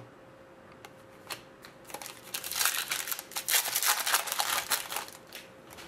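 Foil wrapper of a hockey card pack crinkling as it is torn open and handled, starting about two seconds in and lasting some three seconds, after a couple of light clicks.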